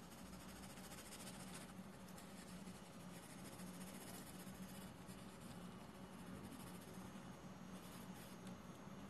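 Faint scratching of a graphite pencil on drawing paper, coming in scattered short strokes over a low steady hum.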